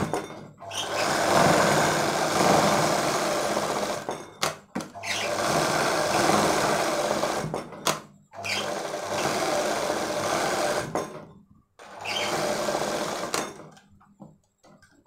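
Sewing machine stitching in four runs of a few seconds each, with short breaks between them while the cloth is turned; it stops near the end. It is sewing the lining onto the back bodice pieces of a child's frock.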